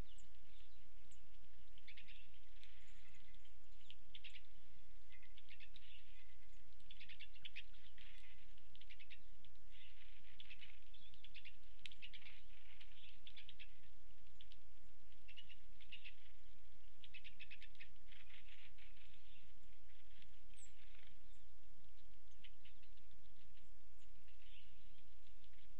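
Small birds feeding at seed and suet feeders: irregular runs of rapid, light clicking and pecking, with a few brief high chirps, over a steady low hum.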